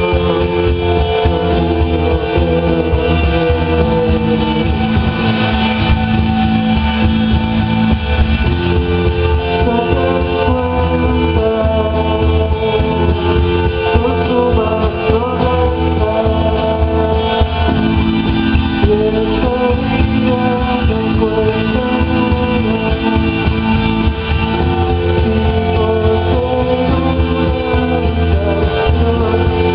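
A rock band playing live: electric guitar, bass, drums and synthesizer, steady and loud with no breaks.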